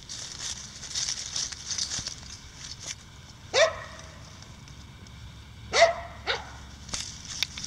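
Norwegian Elkhound puppy giving three short, high-pitched yipping barks, the first about three and a half seconds in and the last two close together near the end. Before them, light rustling and crunching of dry leaves and grass underfoot.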